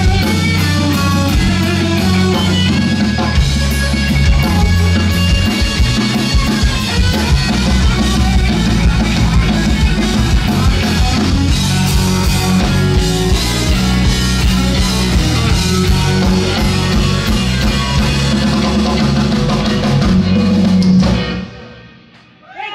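Live electric blues-rock trio: electric guitar playing over a drum kit and bass guitar. About a second and a half before the end the sound fades quickly away.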